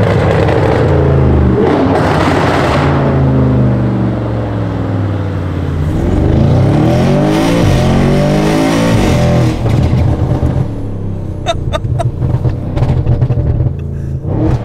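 Straight-piped Audi RS6's V8 accelerating hard, its note rising and falling a few times. Near the end it gives a string of sharp pops and bangs on the overrun, made longer and harsher by tuning that lets it inject fuel a little longer.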